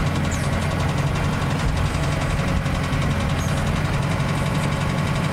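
Farm tractor engine running steadily at low speed while the tractor is backed up to a brush cutter's three-point hitch.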